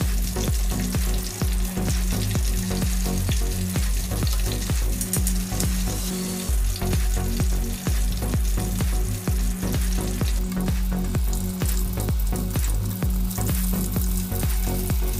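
Breaded chicken burger patties shallow-frying in hot oil in a pan, a steady crackling sizzle, with the low bass line of background music underneath.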